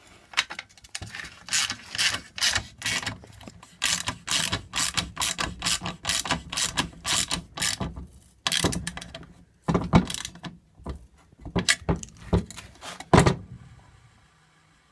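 Ratcheting hex wrench tightening a scooter wheel's 6 mm axle bolt, clicking rapidly in repeated runs of strokes with brief pauses; the clicking stops about a second and a half before the end.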